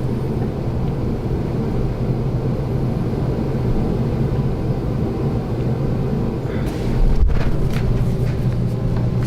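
A steady low rumble runs throughout, with a short cluster of sharp clicks about seven seconds in.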